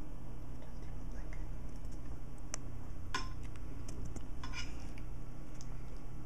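A dinner plate clinking as a cat tugs at a pork chop on it: a sharp click about two and a half seconds in, one ringing clink half a second later, and a short cluster of clicks a second and a half after that, over a steady low hum.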